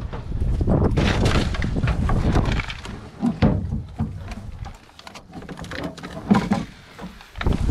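Gear being rummaged through in a pickup truck bed: ropes, plastic bottles and tools rustling and knocking irregularly, with low handling rumble on the body-worn microphone.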